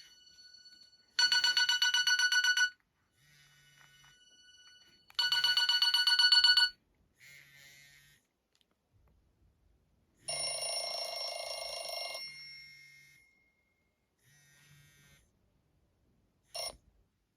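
Nokia E65 mobile phone speaker playing a trilling, bell-like ringtone: two rings about a second and a half long, about four seconds apart. About ten seconds in, a different, softer tone plays for about two seconds, and a short click comes near the end.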